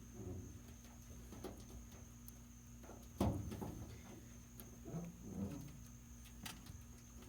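Faint handling noises from work on a toolbox: light clicks and scrapes, with one louder knock about three seconds in, over a faint steady hum.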